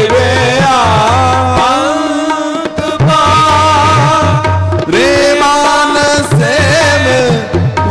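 Sikh Gurbani kirtan music: a slow melody with notes that slide and waver over a tabla beat.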